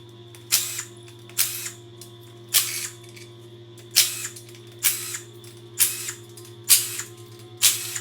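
A power tool run in eight short trigger bursts, about a second apart, each a sharp noisy burst that dies away quickly, over a steady low hum.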